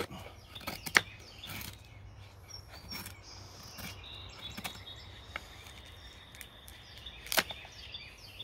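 Bushcraft knife shaving curls off a stick of weathered outdoor wood braced on a stump: scattered short scraping strokes and sharp clicks, with two louder knocks, one about a second in and one near the end.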